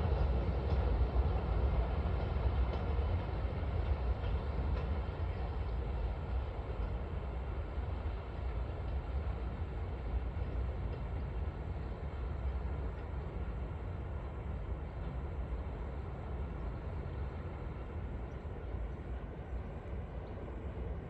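A train running past, a deep steady rumble that slowly fades as it draws away.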